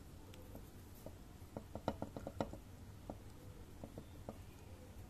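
Ballpoint pen writing on notebook paper: faint scratching with light ticks of the pen stroke, bunched together about two seconds in.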